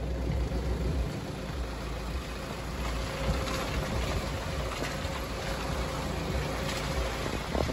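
SUV's engine running and its tyres rolling over slushy, icy packed snow, heard from close beside the front wheel, with a faint steady tone throughout.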